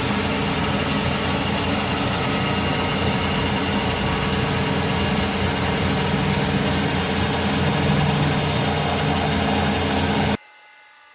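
Kearney & Trecker rotary head milling machine running with its half-inch cutter milling a counterbore, the head turning at 1 RPM. A steady machine hum with several held tones that cuts off abruptly near the end.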